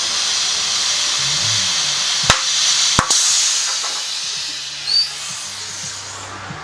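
Compressed air hissing steadily from an air hose nozzle during a scooter tyre change, with two sharp clicks about two and three seconds in; the hiss fades away over the last few seconds.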